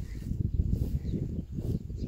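Low, irregular rumbling noise on the microphone from wind buffeting and handling of a handheld camera outdoors.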